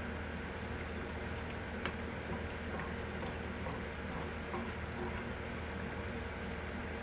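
Soaked green peas frying in hot oil: a steady sizzle with scattered small pops and crackles, over a low steady hum.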